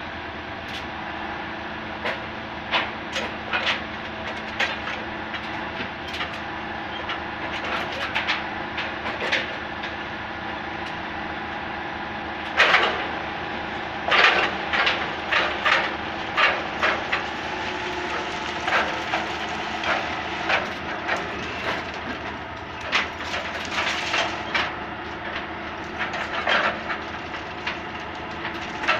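Heavy track-repair machinery running steadily during dismantling of long welded rails, with irregular sharp metallic clanks and knocks. The clanking comes thickest about halfway through and again near the end.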